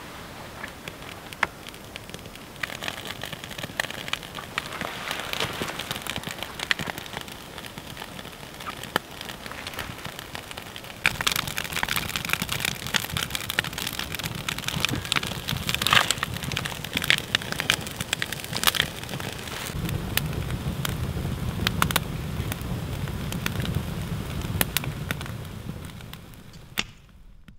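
Rain falling hard, many drops pattering on a surface. It turns sharply heavier about ten seconds in, and a low rumble joins later on. The sound cuts off just before the end.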